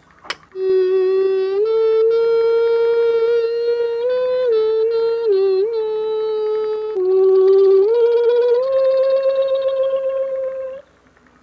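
Beatboxer's hummed vocal tone, held steadily and stepping up and down between a few pitches like a simple tune for about ten seconds, after a click or two at the start; it cuts off abruptly near the end.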